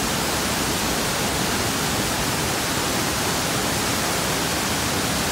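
Large waterfall, the Great Falls of the Passaic River, pouring into a rock gorge: a steady, even rush of water.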